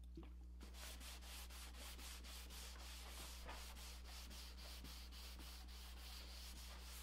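Faint rag wiping alcohol-based stain onto a cedar-strip kayak deck in quick, repeated back-and-forth strokes, starting just under a second in, over a steady low hum.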